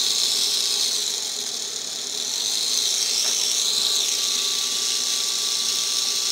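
Small electric motor and gearing of an HO scale model locomotive running on bench power, a steady high-pitched whir with a thin whine, its motor shaft freshly lubricated. It eases slightly about two seconds in and then picks back up.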